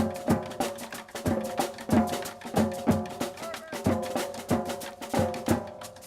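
Marching drumline playing a steady percussion cadence: loud drum strikes about every two-thirds of a second with quicker, lighter strikes between them.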